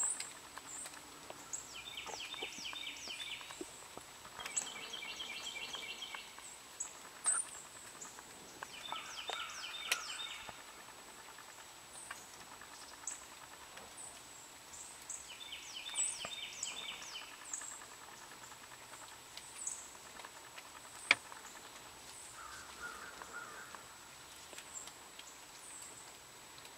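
Songbirds singing in woodland: short trilled phrases of fast repeated notes every few seconds, with thin high chips between them. A faint steady high tone runs underneath, and there are a few sharp clicks, the loudest about two-thirds of the way through.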